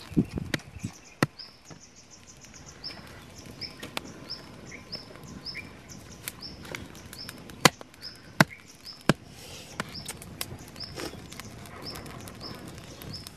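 Several sharp cracks of dry sticks being broken and handled while building a wood cooking fire, the loudest a few in a row near the start and three more about two thirds of the way through. A bird repeats a short high chirp over and over in the background.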